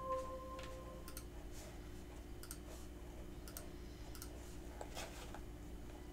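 A ringing chime tone dies away within the first second, leaving faint, irregular clicks and crackles over a low steady hum.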